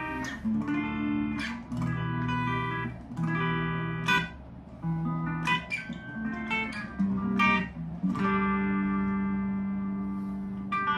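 Harley Benton Modern Strat SSH electric guitar played through an amp on its bridge humbucker: a series of picked chords about a second apart. The last chord, about eight seconds in, is left to ring and slowly fade.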